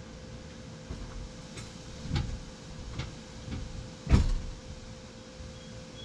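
Five or so irregular dull knocks and thumps, the loudest about four seconds in, from someone moving about inside the motorhome: a door and footsteps heard through the wall. A steady faint hum runs underneath.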